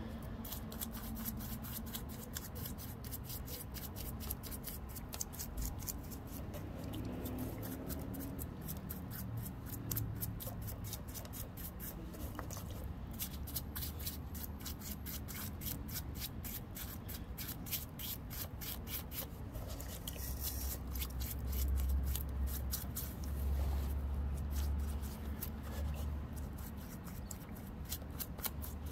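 A paintbrush's bristles scrubbing a wet, muddy rock in quick repeated strokes, washing mud off a fossil. A low rumble rises in the background about two-thirds of the way through.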